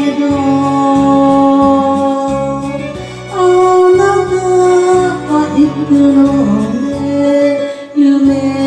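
A song sung over an accompanying backing track: a voice holding long, drawn-out notes that waver in pitch, over a steady bass line, with a brief drop in level a little past three seconds in.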